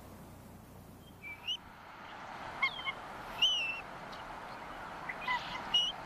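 Bald eagle calling: about five short, high-pitched thin calls, some bending in pitch, the loudest about three and a half seconds in, over a steady background rush.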